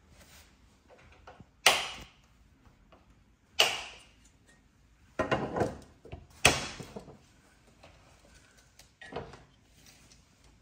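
Plastic-and-metal TV wall-mount plate being handled: a handful of sharp clacks and knocks, with a short rattle in the middle.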